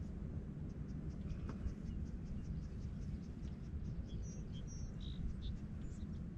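Faint high chirps and quick ticking calls of small birds or insects, a steady run of ticks through the first half and a few short chirps later, over a steady low rumble.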